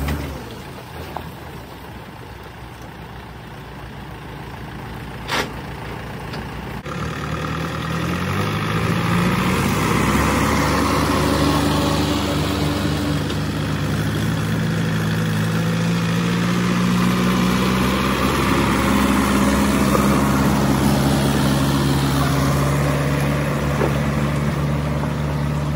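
Diesel tractor engine pulling a trolley heavily loaded with sugarcane, running low at first, then revving up about eight seconds in and running hard and steady under the load. A single sharp knock comes about five seconds in.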